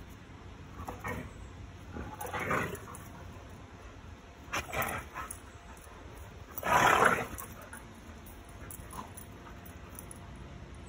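Two dogs play-fighting, with about five short bursts of play growling and yipping; the loudest comes about seven seconds in.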